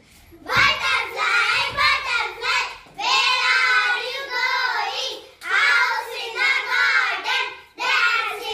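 A small group of children singing a nursery rhyme together, in short phrases with brief pauses between them.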